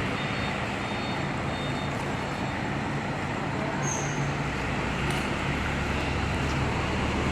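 Tour bus diesel engines idling ahead of departure, with a low rumble that grows stronger about halfway through.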